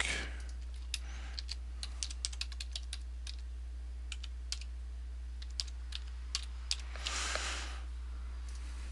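Keystrokes on a computer keyboard: irregular, sharp clicks as text is typed, some close together and some with pauses between. Under them runs a steady low hum.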